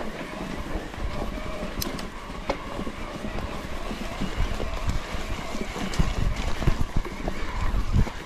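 Cube HPC SL carbon bike ridden fast over uneven ground. Wind buffets the action camera's microphone, the bike rattles and clicks, and low thumps from bumps come more often in the second half.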